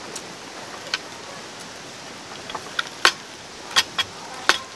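Knife and fork clinking and scraping against a serving plate while carving a crispy pata (fried pork knuckle). The sharp clicks come irregularly, the loudest about three seconds in and again near the end.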